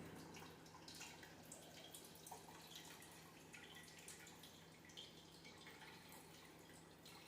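Near silence, with a few faint water drips and small ticks.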